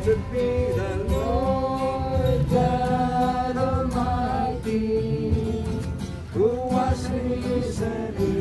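Several people singing a song together, accompanied by a strummed acoustic guitar.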